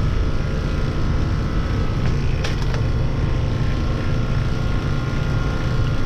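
Ship's air-conditioning plant machinery running: a steady low drone with a faint steady whine above it. A few quick clicks come about two and a half seconds in.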